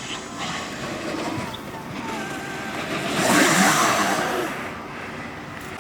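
Freebord wheels rolling on pavement, a steady rush that swells louder about three seconds in, then eases off.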